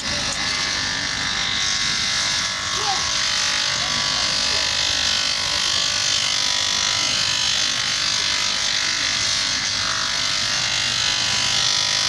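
Bench grinder motor running steadily while the edge of a sandal sole is pressed against its spinning abrasive wheel and sanded.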